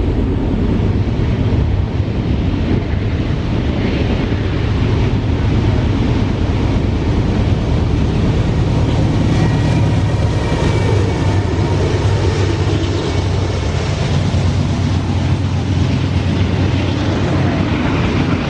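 Freight train's diesel locomotives running past with a steady, loud low engine drone. A faint thin high tone comes in briefly around the middle.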